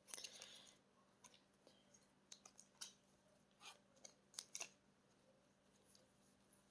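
Faint handling of album packaging: a brief rustle right at the start, then scattered light clicks and ticks as paper, card and plastic are moved about.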